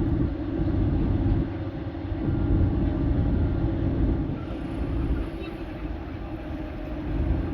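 A vehicle running: a continuous low rumble with a steady drone, with no sudden events.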